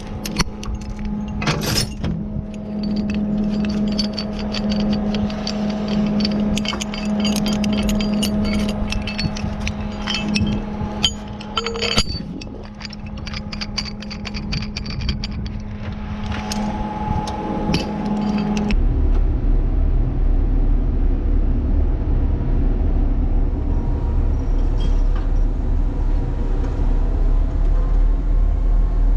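Steel lifting chains, hooks and shackles clinking and rattling as they are unhooked from a crane hook, over a steady engine hum. About two-thirds of the way through, this gives way abruptly to a deeper, steady rumble of the Liebherr mobile crane's engine heard inside the operator's cab.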